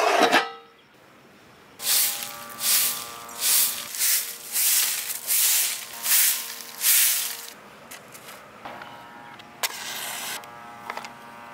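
A coconut-rib broom sweeping dirt ground in about seven or eight swishing strokes, followed near the end by a match struck on its box and flaring. It opens with a short clatter as an aluminium plate is set over a metal bowl.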